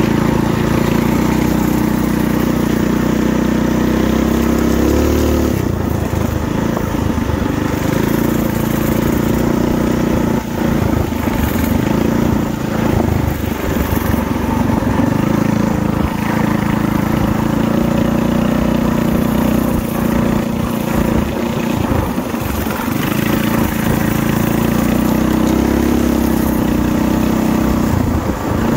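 Coleman gas minibike's small single-cylinder four-stroke engine running while riding, its pitch shifting up and down as the throttle is worked, with brief dips in speed here and there.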